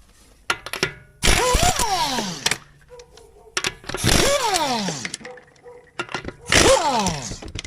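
Ingersoll Rand 2236 impact wrench hammering in three bursts of a second or more each. Its motor's pitch falls steeply as it winds down after each trigger release. There are a few sharp clicks just before the first burst.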